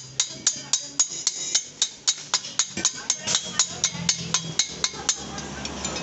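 A hammer rapidly striking steel, about four ringing blows a second, thinning out near the end.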